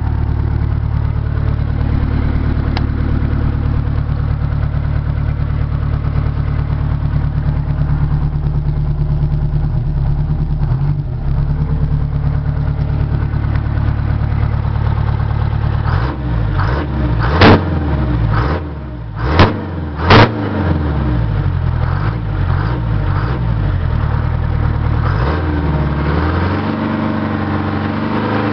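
Detroit Diesel 8V71 two-stroke V8 diesel running steadily at idle, then revved up and down repeatedly from a bit past halfway, with three short, very loud peaks, before settling back to a steady idle near the end.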